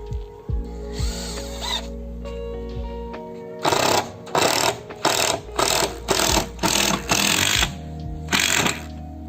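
A power drill runs in a series of short trigger bursts, about eight in five seconds, starting a little under four seconds in. Background music with steady tones plays throughout.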